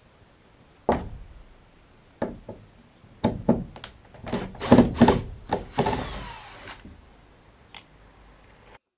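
Workshop knocks and clatter of wooden framework and hand tools, bunching into a quick run of knocks about four to five seconds in, then a brief whir that winds down in pitch, like a power tool running down.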